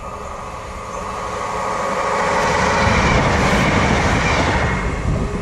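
East Midlands Railway Regional diesel multiple unit approaching and passing close by on the track. Its noise grows over about the first three seconds, then holds loud as the carriages go past.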